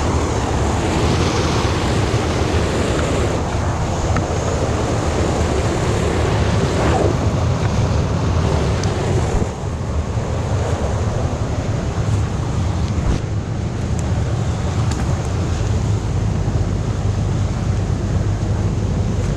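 Stream water pouring over a small concrete weir into a churning pool below: a steady, loud rush of white water.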